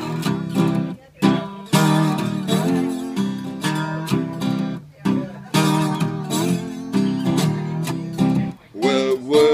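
Vintage parlor acoustic guitar with a trapeze tailpiece played bottleneck-slide blues, picked with a thumb pick in a repeating riff. Each pass of the riff ends in a short break, about every four seconds.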